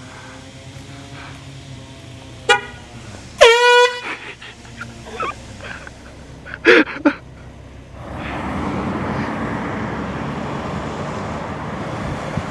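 Handheld canned air horn blasted: a short toot about two and a half seconds in, then a louder, half-second blast a second later. Two more short, loud sounds come about seven seconds in, and from about eight seconds a steady rushing noise begins.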